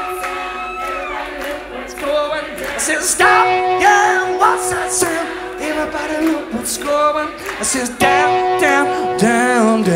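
Song with sung vocals over sustained accompanying chords, playing as the soundtrack.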